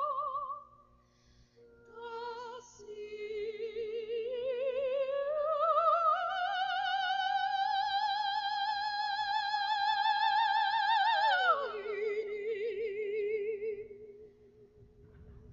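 Soprano singing with wide vibrato: after a brief pause, a slow rising line climbs to a long held high note, which drops sharply to a lower held note.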